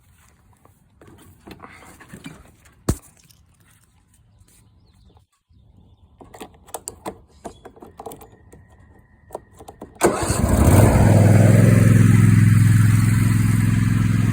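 Scattered clicks and handling noises, one sharp click about three seconds in, then about ten seconds in the Husqvarna Z246 zero-turn mower's engine starts at once and settles into steady running. The no-start fault is cured: a missing pin key in the brake-lever safety linkage had kept it from turning over.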